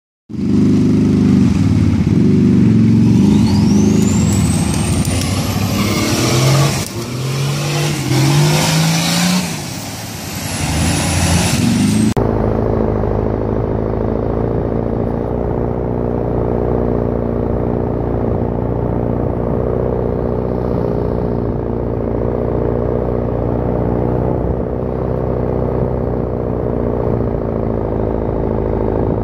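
Off-road vehicle engine revving and straining, its pitch rising and falling, for about twelve seconds. Then an abrupt cut to a steady, more muffled engine drone.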